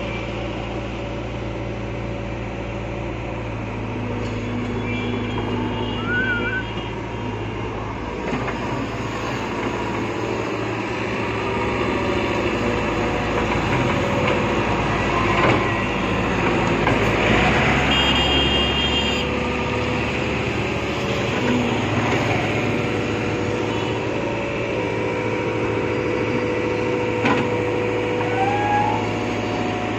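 Sumitomo hydraulic excavator's diesel engine running steadily under load while it digs and swings sand, its note shifting as the hydraulics work. A brief high-pitched whine comes about halfway through.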